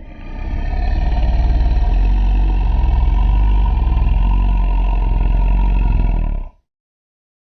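Zilla creature sound effect: a deep, rough, throbbing rumble that swells over the first second, holds steady, and cuts off about six and a half seconds in.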